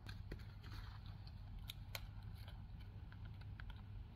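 Scattered light clicks and small taps, irregular and a few per second, of hands handling a plastic jerrycan lantern, over a faint steady low hum.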